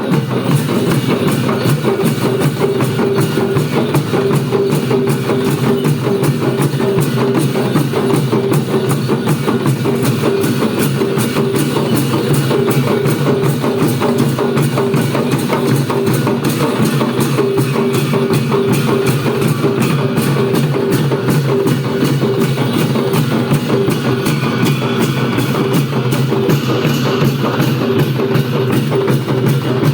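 Traditional Newar festival percussion music for the Bhairab masked dance: drums beaten in a fast, unbroken rhythm, with a steady held tone underneath.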